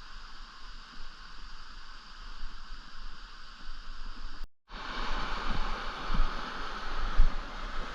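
Steady rush of flowing stream water. It cuts out briefly a little past halfway, then comes back louder, with occasional low thumps.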